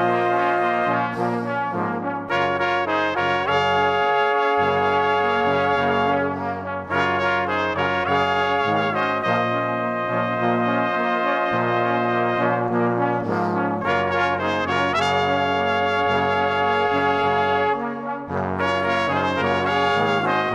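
Background music, sustained brass-like chords that change every second or two.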